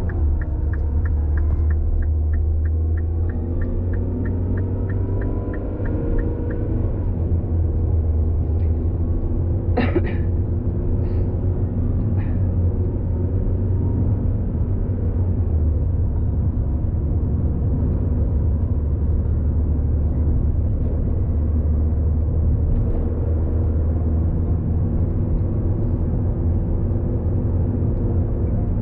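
Steady low rumble of a car in motion, its engine pitch rising and falling. A regular quick ticking, about three a second, runs through the first six seconds or so, and a few short sharp sounds come about ten to twelve seconds in.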